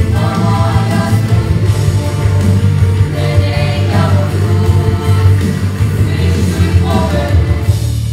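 Children's vocal ensemble singing a song together, with a steady instrumental accompaniment underneath.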